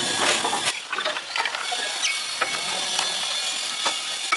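Mechanical workshop sounds: a hiss that cuts off under a second in, then scattered light clicks, taps and short ringing clinks of tools on metal.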